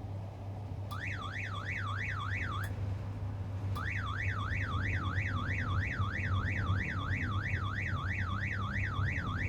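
Mobile crane's wind alarm sounding: an electronic tone sweeping up and down about three times a second. It starts about a second in, stops briefly, then starts again and keeps going, warning that the wind is gusting above the crane's safe limit. A steady low hum runs underneath.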